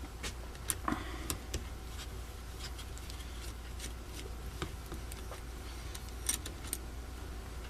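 Scattered light clicks and taps of small parts and tools being handled on a workbench, a cluster in the first second or two and a few more later, over a steady low hum.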